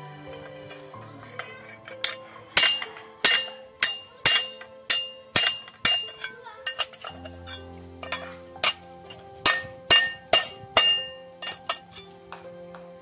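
Hammer striking a steel plate laid on a steel beam to bend it: a series of sharp metallic clanks with a short ring, about one or two a second, with a brief pause near the middle. Background music plays underneath.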